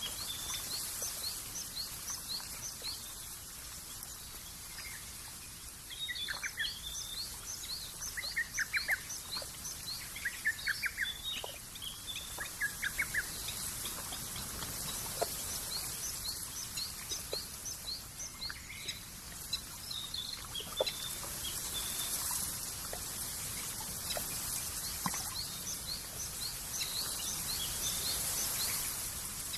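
Small birds calling and singing: many short, high chirps in quick runs, with several trilled phrases from about six to thirteen seconds in, over a steady high hiss of countryside ambience.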